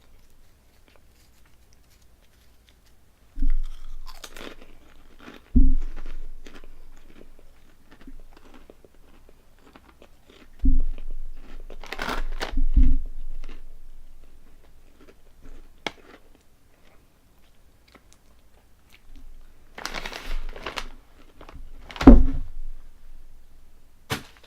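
Ribbed Honey Tong Tong potato snacks being bitten and chewed close to the microphone. There are three bouts of loud crunching, each starting with a sharp bite, with quiet pauses between.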